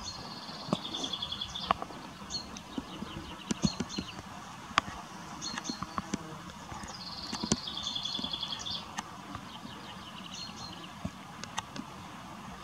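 A songbird singing. It gives two long trilled phrases, each a higher trill dropping to a lower one, about a second in and again about seven seconds in, with short chirps between. Scattered sharp clicks over a steady hiss are louder than the song.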